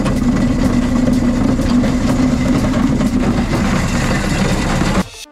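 Ice crusher running: a steady motor hum with dense crackling as ice chunks are crushed. It cuts off suddenly near the end.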